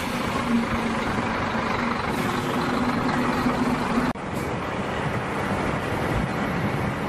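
A vehicle driving up a mountain pass: a steady engine hum under dense road and wind noise. There is a sudden break about four seconds in, and then the same running sound carries on.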